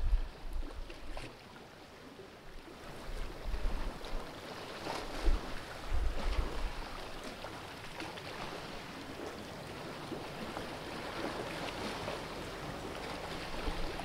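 Sea water washing and lapping against the rocks of a narrow coastal gully, a steady watery hiss. Low rumbles come in now and then, strongest about five to seven seconds in.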